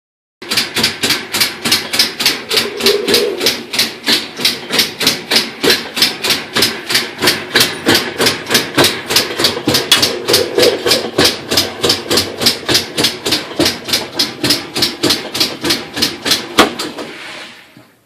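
Direct-drive top-load washing machine running with a loud, regular clicking, about three clicks a second, before it dies away near the end. The clicking is a fault the owner has not yet traced: motor, coupling, brakes and clutch all checked out.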